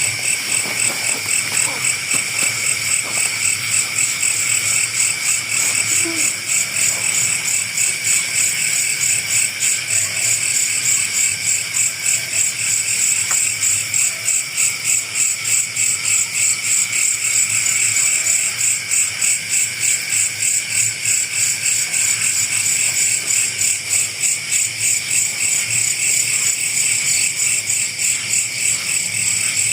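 Night insects, crickets or katydids, calling in a loud, steady chorus that pulses evenly a few times a second.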